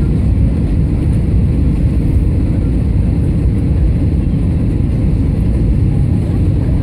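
Steady low rumble of an airliner's jet engines and rushing airflow heard inside the passenger cabin, on approach for landing.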